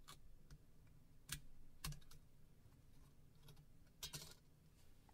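Faint small clicks and scrapes of a dental tool prying the sides of a phone's metal shielding lid free from the circuit board: a few sharp ticks and a short cluster near the end.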